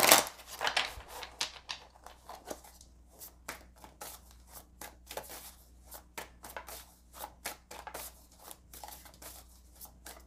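Tarot deck being shuffled by hand: a run of quick, irregular card flicks and slaps, the loudest right at the start.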